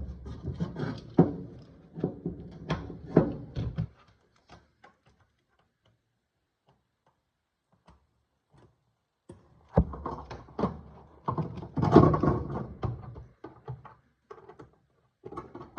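Irregular knocks, clunks and thuds of hands-on work around a strapped-down washing machine, in two busy runs with a few seconds of near silence between them.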